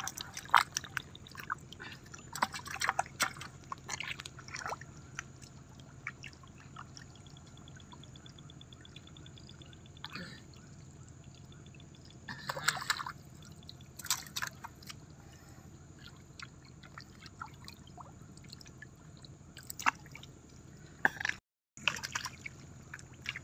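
Hands groping through shallow muddy water: scattered splashes and drips, in short clusters with quieter stretches between.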